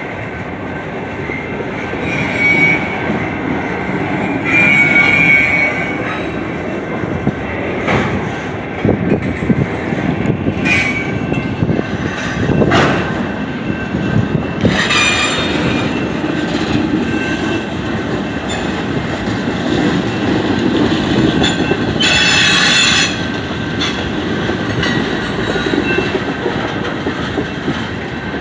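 A long train rolling past in a steady rumble of wheels on rails. Four brief high-pitched wheel squeals and a few sharp clanks stand out from the rumble.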